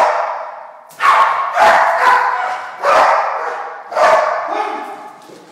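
Large dog barking at a decoy in a bite suit during protection training, the bark-and-hold of a guarding dog. About five loud barks, each echoing and fading in a big hard-walled hall.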